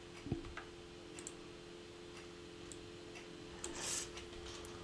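Faint, scattered clicks of a computer mouse and keyboard over a low steady hum.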